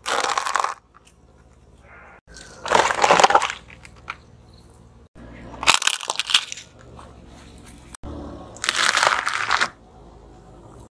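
A car tyre rolling over and crushing brittle objects on asphalt: four separate crackling crunches, each under a second long, with a low rumble from the car between them.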